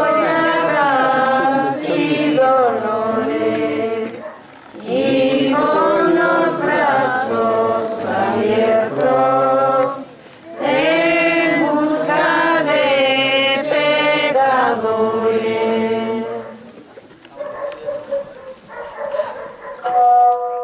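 A group of voices singing a slow religious hymn in unison, in three long phrases with short breaks between them, dying away about sixteen seconds in. A brief loud call comes near the end.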